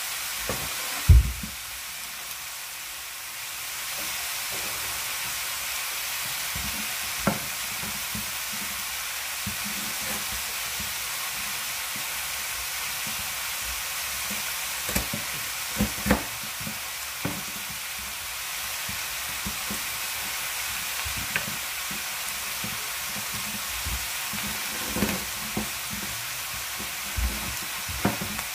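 Cubed pork sizzling in a little oil in a stainless steel wok, left unstirred on garlic and onion: a steady frying hiss with scattered pops and clicks. There is a single loud knock about a second in.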